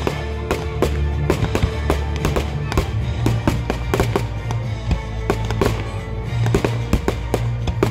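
Fireworks bursting and crackling in quick, irregular bangs over music with steady bass notes.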